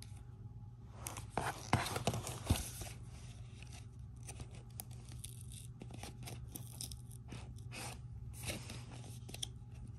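Card and paper packaging from a MacBook Pro box being handled: a run of short rustles, scrapes and light taps as the card insert tray and paper inserts are moved about.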